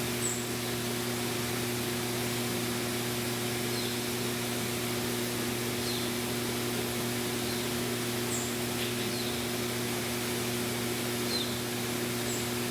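Steady rush of flowing water from a forest stream or waterfall, an even hiss without breaks. A constant low hum lies under it, and brief high chirps come every second or two.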